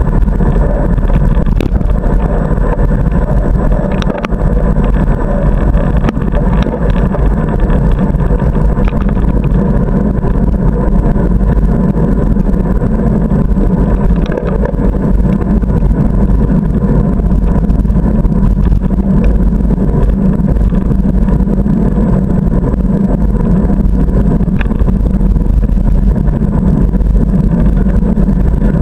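Steady wind rush and rolling road rumble on the microphone of a bicycle-mounted camera while riding on pavement, with a few short knocks from bumps in the road.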